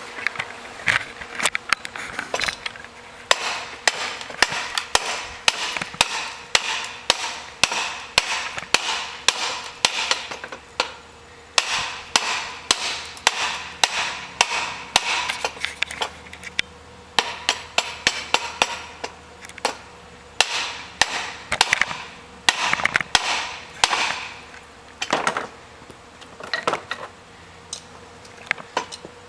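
Hand hammer striking a steel billet at welding heat on an anvil: sharp blows about two a second, with a few short pauses.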